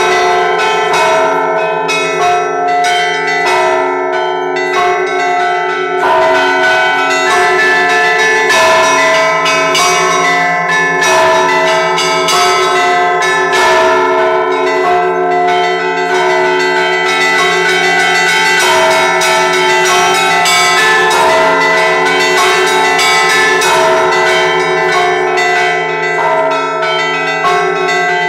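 Russian Orthodox church bells rung by one bell-ringer in a razgonny zvon, the Sunday peal at the end of the service. Several bells of different pitches are struck in quick, continuous succession, their tones ringing on over one another.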